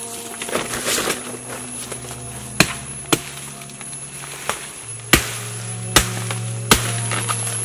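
Five sharp knocks, the last three the loudest, over a steady low drone of background music.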